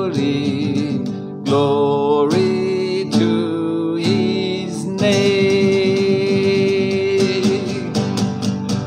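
The close of an old-school gospel song: a man singing long held notes over strummed acoustic guitar.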